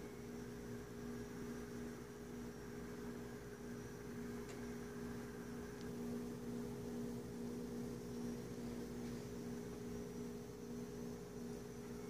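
Terrarium waterfall pump and fogging system running: a steady electric hum over a soft hiss.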